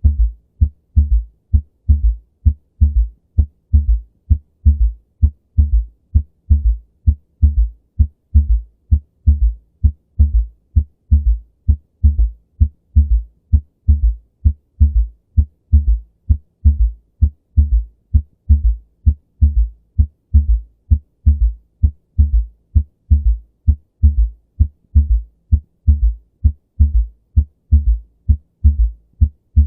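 Heartbeat with a third heart sound (S3), a ventricular gallop: low thuds repeating about three times a second, the first and second heart sounds followed by an extra early-diastolic thud. The S3 is thought to come from abrupt slowing of left ventricular inflow in early diastole, with raised filling pressure and a stiff left ventricle.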